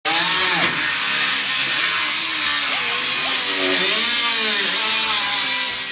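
Angle grinder working steel, a loud steady hiss with a whine that dips and rises in pitch; it fades out at the end.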